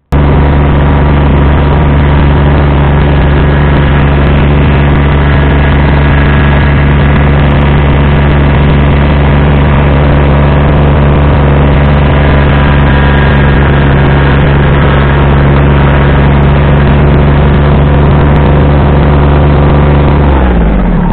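Kubota BX2360 compact tractor's three-cylinder diesel running steadily at high revs, heard from inside its cab, with the front snowblower clearing snow. About twenty seconds in the revs fall away.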